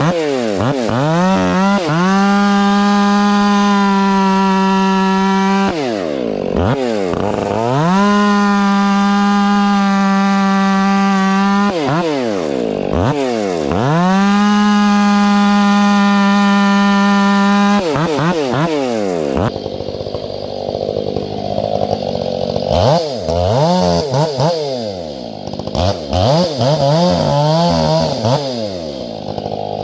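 Two-stroke chainsaw with square-ground chain, bucking firewood. It revs to full throttle and holds there about four seconds, three times in a row, falling back between cuts. It then idles unevenly with a few short throttle blips.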